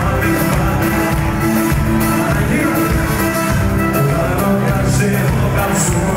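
Loud music with singing played over a club's sound system at a concert, heard from within the crowd.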